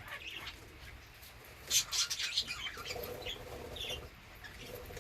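Budgerigars chirping and chattering, with a cluster of quick high chirps about two seconds in.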